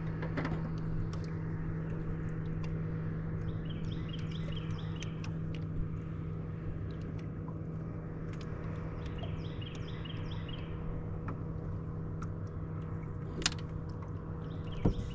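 A steady motor hum from a bass boat. A bird sings a short burst of quick repeated notes about every five seconds. Near the end there are two sharp clicks.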